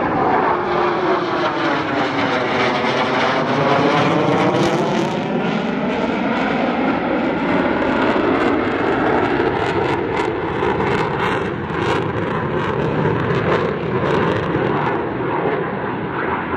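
F-15 Eagle's twin jet engines roaring past on afterburner in a flyby. The roar has a hollow, sweeping tone that falls and rises as the jet passes, then turns to a ragged crackle as it moves on.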